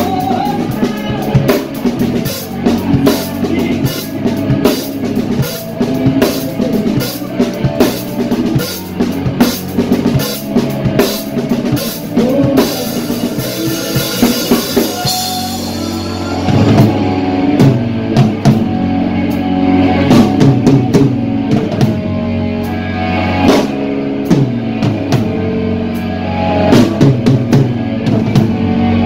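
Live instrumental rock played on a drum kit with guitar: busy drum and cymbal hits over a pitched line. About halfway through, the cymbals swell into a wash, then drop away, leaving guitar with lighter drumming. Dense cymbal hits return near the end.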